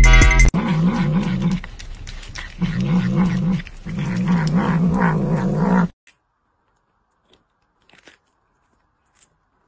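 A domestic cat yowling and growling in three long calls whose pitch wavers. After about six seconds this gives way to near silence with a few faint clicks.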